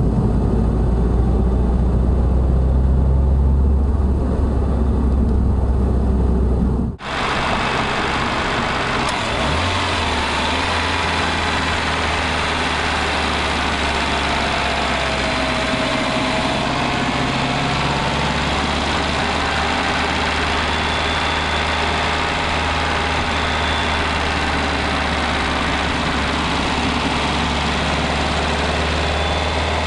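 Subaru WRX STI heard from inside the cabin while driving: a strong low road and drivetrain hum that includes the front-end noise the owner suspects is a worn hub bearing. About seven seconds in it cuts to the engine bay, where the car's turbocharged EJ20 boxer four idles steadily.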